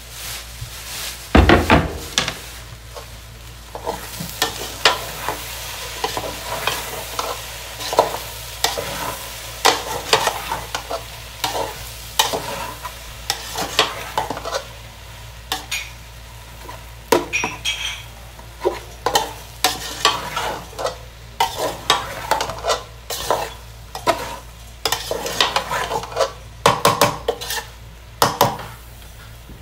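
Metal spatula scraping and knocking against an aluminium pot, stirring okra and tomatoes frying in oil, with irregular strokes about once or twice a second and a louder knock about a second and a half in. A steady sizzle runs underneath.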